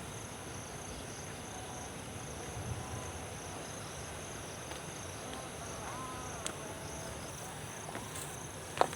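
Insects chirring steadily in a continuous high-pitched drone over a soft background hiss, with a single sharp click just before the end.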